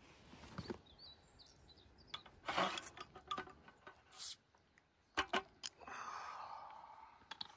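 A bottle opener prying the crown cap off a glass beer bottle: two sharp metal clicks as the cap lets go, then a short hiss as the beer's gas escapes. Birds chirp faintly in the background.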